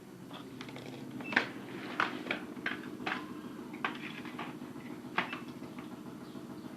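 Irregular sharp clicks and knocks of TV parts and tools being handled, about eight in all, over a steady low hum.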